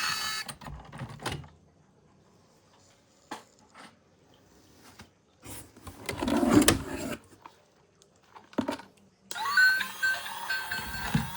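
Scattered clicks and knocks of objects being handled, with a louder, longer rattle about six seconds in; background music starts again about nine seconds in.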